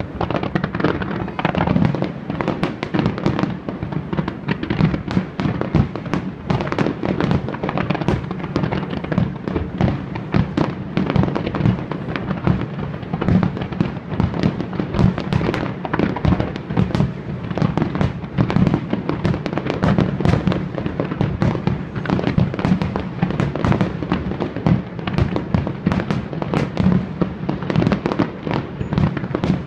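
Aerial fireworks display: shells bursting in a dense, continuous barrage of bangs and crackles, several a second, without a break.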